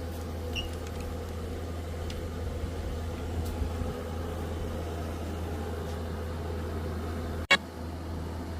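Steady low engine rumble, like a vehicle idling, with a sharp click about seven and a half seconds in.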